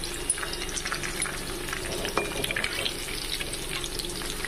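Marinated soya chunks deep-frying in hot oil in a kadai: a steady sizzle with constant small crackles and pops.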